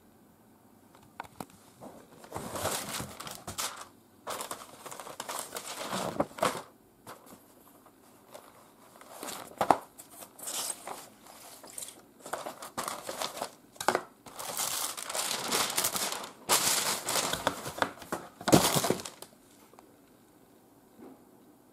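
Paper instruction leaflet and cardboard box being handled: irregular crinkling and rustling in bursts, with a few sharper taps.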